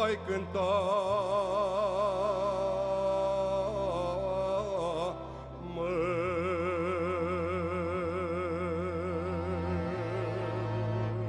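Romanian folk music: a melody of long held notes with a wide vibrato over a steady bass accompaniment, the bass changing note about six seconds in and again near the end.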